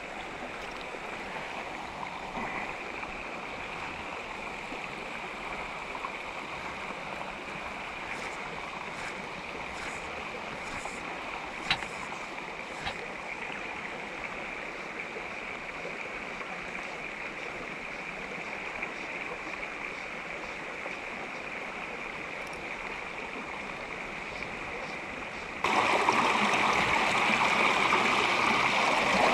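Mountain trout stream running over rocks, a steady rush of water; a single brief click about twelve seconds in. Near the end the rush suddenly becomes louder and fuller.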